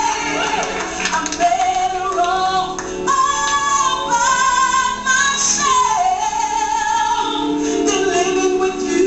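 A woman belting a soul vocal line live over band accompaniment, singing long held notes that slide and step between pitches.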